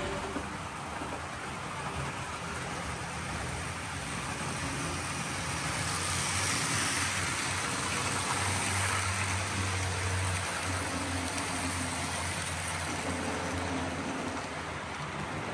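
Model train rolling past close by on its track: a steady rumble of wheels and motor. A low hum grows stronger for a few seconds past the middle.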